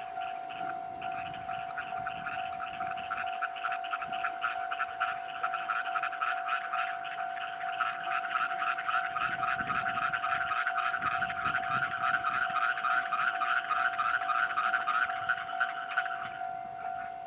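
Japanese railway level-crossing alarm ringing: a steady electronic tone under a fast, repeating ringing pulse. The ringing grows louder partway through and drops away sharply near the end.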